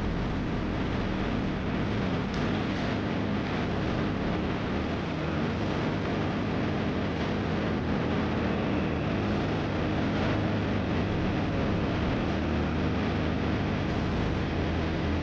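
Segway AT5 ATV under way at a steady pace: engine running with a dense rumble of road and wind noise.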